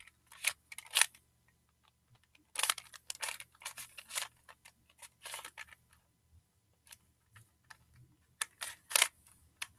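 Barrel cube, a plastic twisty puzzle, being turned by hand: quick runs of sharp plastic clicks as its layers are twisted, in clusters with short pauses between.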